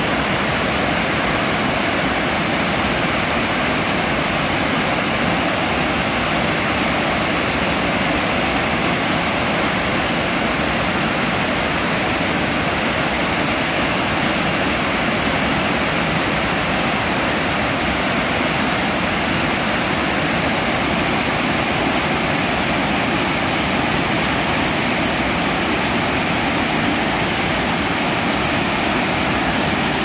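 Large tiered waterfall pouring over rock ledges into a pool: a loud, steady, even rush of falling water with no let-up.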